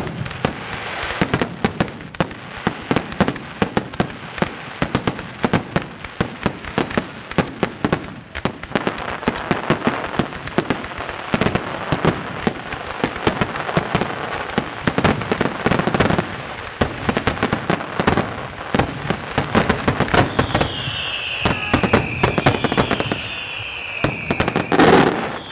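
Aerial firework shells bursting in a dense, rapid barrage of bangs over a steady crackle. A run of falling whistles comes in near the end, and the loudest bang of all comes just before the end.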